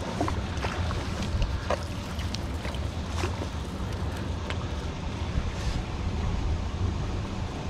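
Wind rumbling on the microphone, with a few scattered short clicks.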